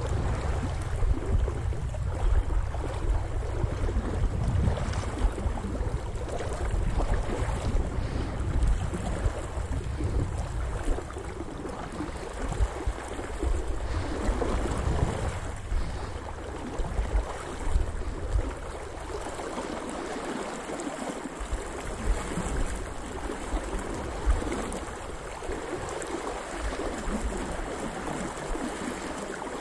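A spate river in flood, rushing and swirling against the legs of an angler wading in it, with a heavy low rumble that eases somewhat in the second half.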